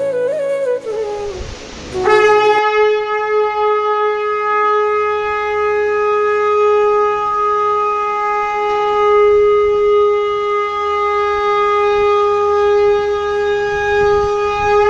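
Conch shell (shankh) blown in one long, steady, unbroken blast on a single pitch. It starts about two seconds in and holds for about thirteen seconds.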